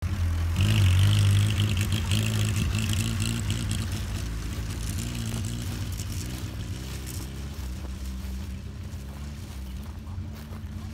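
Austin 7's small four-cylinder side-valve engine running as the car drives across grass, loudest about a second in and then fading steadily as it pulls away.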